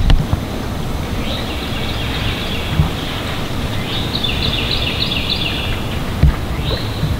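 A songbird singing runs of repeated two-part notes: a short run about a second in, about five notes in the middle, and one more near the end. Underneath is a steady low rumble of wind on the microphone, with a soft knock about six seconds in.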